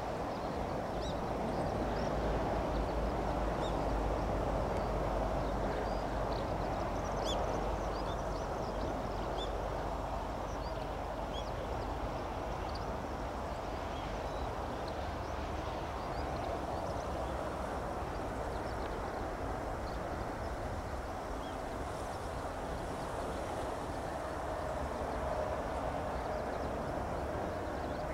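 Steady rumble of an Airbus A330 airliner's jet engines on approach and landing, heard from a distance, with the low rumble strongest in the first ten seconds. Small birds chirp over it throughout.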